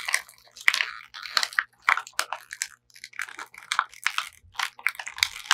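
Clear plastic toy packaging crinkling and crackling in quick, irregular bursts as it is handled and unpacked.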